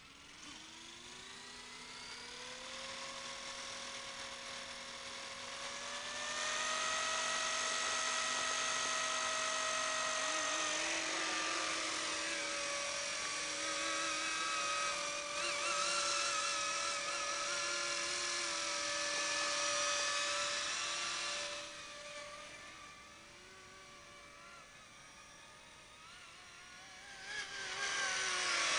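Motor and rotors of a small battery-powered 1:32 scale Lynx RC helicopter spooling up with a rising whine over the first few seconds, then a steady, louder whine as it lifts off and hovers. The whine drops quieter about 21 seconds in and rises again near the end as the throttle changes.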